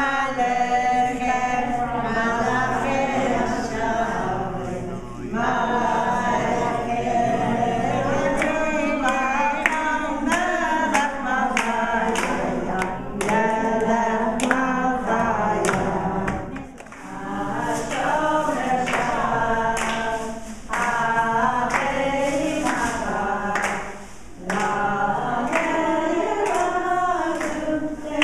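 A group of voices singing a song together, with hands clapping along to the beat.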